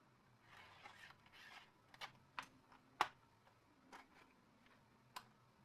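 Near silence with a handful of faint, scattered clicks and light taps, the clearest about three seconds in.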